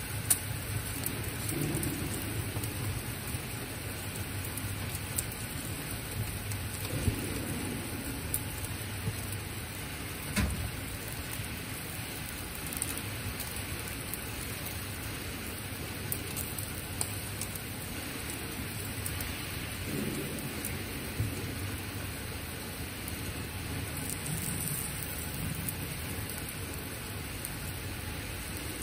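Eel fillets sizzling on a wire mesh grill: a steady hiss of cooking juices with scattered sharp pops and crackles.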